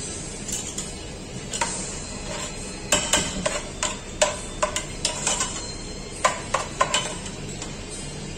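Metal spatula clinking and scraping against an aluminium saucepan while custard is scooped out: a run of sharp clicks and knocks from about a second and a half in until about seven seconds in.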